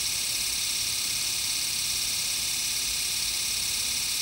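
Treadmill DC motor running steadily on its control board after a restart: a steady hiss with a faint hum through it.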